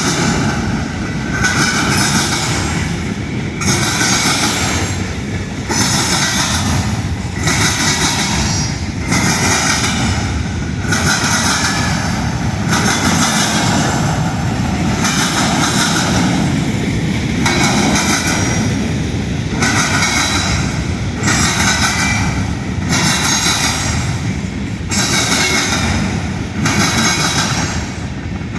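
Union Pacific train's cars rolling past at speed: a steady rumble of steel wheels on rail with a clatter that swells and dips about every couple of seconds as each car goes by.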